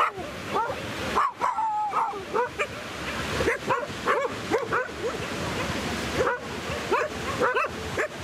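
Dogs barking and yelping in a rapid string of short, high, pitch-bending calls, about two or three a second, over the steady wash of surf.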